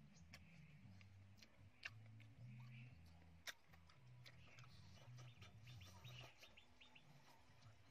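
Faint eating sounds: chopsticks clicking against a metal wok a few times, then soft chewing with small crunches near the end, over a faint low hum.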